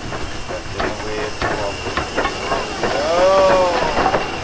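Hunslet saddle tank steam locomotive passing slowly at close range, steam hissing, with irregular clicks and knocks from its wheels and running gear.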